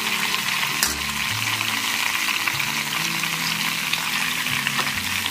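Ghee sizzling and crackling steadily under a whole leg of mutton searing on a flat tawa, with one sharp pop about a second in.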